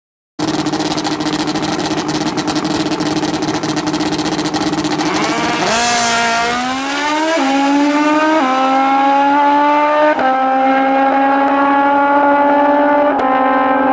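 Drag-racing motorcycle engines held at steady high revs with a crackling exhaust note. About six seconds in, they launch down the strip at full throttle, the pitch climbing and dropping back at each of four gear shifts.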